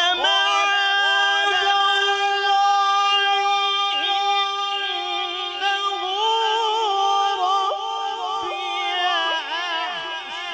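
A man reciting the Quran in melodic tilawat style, unaccompanied and amplified through a microphone: one long held phrase, the note sustained, then wavering in ornaments and stepping down in pitch near the end.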